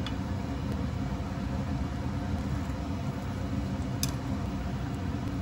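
Steady low rumbling noise of a pan of tteokbokki cooking on an induction cooktop, with a few light clicks of a wooden spatula against the pan as it is stirred, the clearest about four seconds in.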